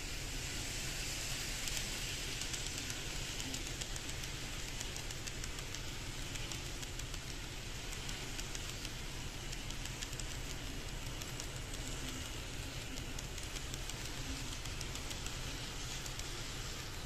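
KATO N-gauge 500 series Shinkansen model train running along the track: a steady rushing rattle of wheels on rail, with a stream of faint light clicks.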